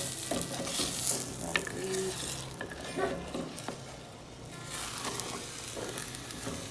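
Meat and egg sizzling as they fry in a pan, with a few clicks and scrapes of a utensil against the pan.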